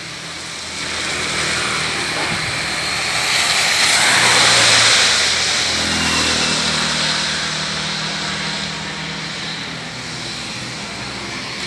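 Street traffic: a vehicle passing close by, its noise swelling to a peak about four seconds in, followed by the steady low hum of an engine.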